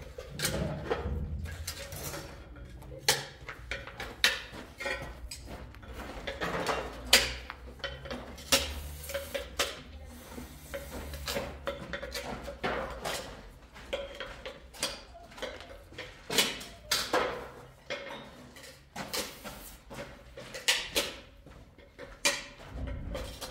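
Irregular clinks, knocks and scrapes of ceramic tiles being handled and set against a wall during tiling.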